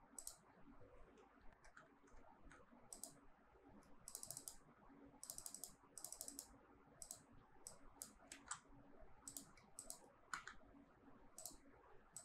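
Faint computer mouse and keyboard clicks, scattered single clicks with a few quick runs of clicks around the middle.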